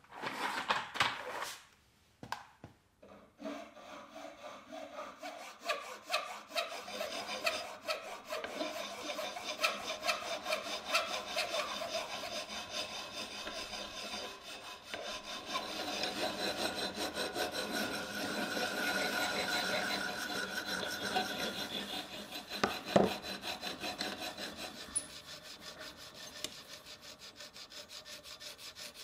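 Hand file rasping on a bent metal bar clamped in a bench vise, in rapid back-and-forth strokes. A single sharp knock about 23 seconds in is the loudest sound.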